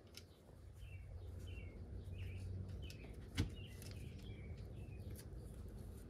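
One sharp click of the toy tractor's plastic wheel parts being pressed together about three and a half seconds in, over a low steady hum and a string of faint, short high chirps.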